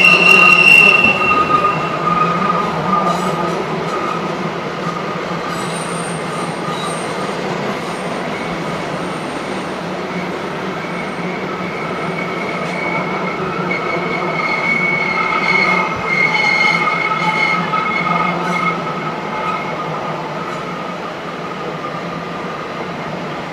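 Empty spine cars and flatcars of a BNSF intermodal train rolling past on a curve, wheels squealing in several steady high tones over the low rumble of the wheels on the rails. The squeal is strongest at the start, fades, and returns in the middle.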